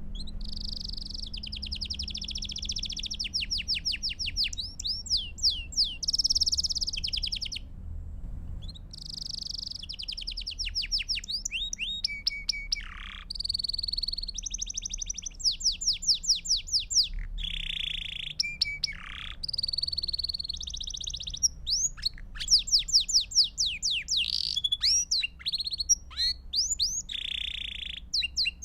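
Belgian (domestic) canary singing: high-pitched phrases of fast rolling trills and rapid chirping sweeps, one after another with short pauses between them, over a faint low hum.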